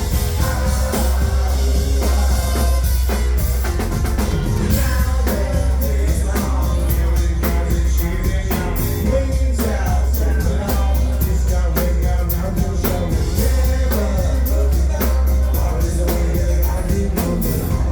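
A band playing live, loud and without a break: a drum kit keeping a steady beat over heavy bass.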